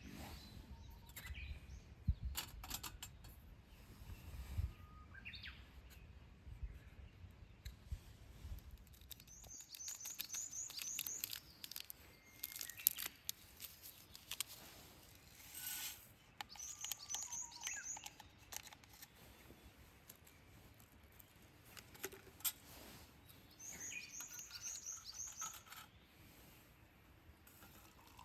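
Birdsong: a songbird repeats a short phrase of quick high notes three times, with other bird calls around it. Scattered sharp clicks and knocks are heard, and a low rumble stops about a third of the way in.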